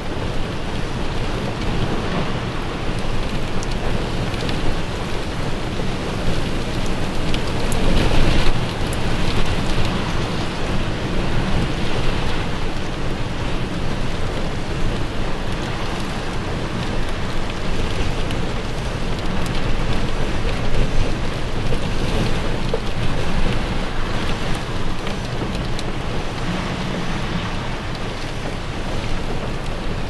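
Gale-force wind buffeting the microphone in a continuous loud rush, over rough lake water and waves breaking against a breakwall. A strong gust swells about eight seconds in.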